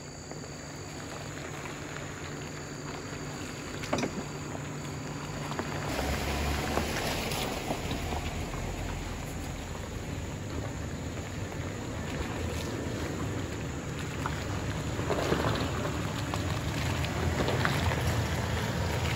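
Engines of a Jeep Wrangler JK and a Toyota 4Runner running at a slow crawl over a rutted, muddy gravel track, with a steady low hum that turns to a heavier rumble about six seconds in. It grows louder toward the end as the 4Runner draws close.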